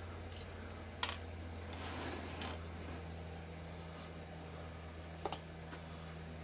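Small metal screws being backed out and set down on a wooden bench: a few sharp clicks and taps, one with a brief metallic ring, and a quick double click near the end, over a steady low hum.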